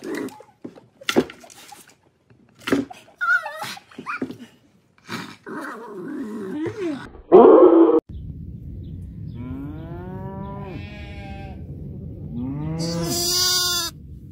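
Scattered knocks and short sounds, then a loud short sound about seven seconds in. After that, a young lamb bleats twice: each is a long call that rises and falls in pitch, over a steady low hum.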